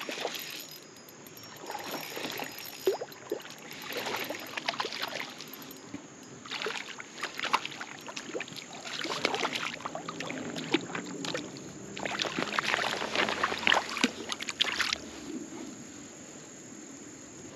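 Creek water splashing in irregular bursts as a hooked smallmouth bass thrashes at the surface while being reeled in and landed.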